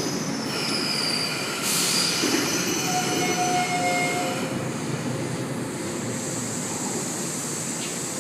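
Sydney S set double-deck electric train moving at the platform, a steady rumble of wheels and motors, with thin high-pitched wheel squeals in the first half.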